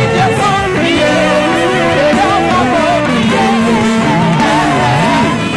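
Loud, upbeat live praise and worship music, with several voices singing wavering melodic lines over a band.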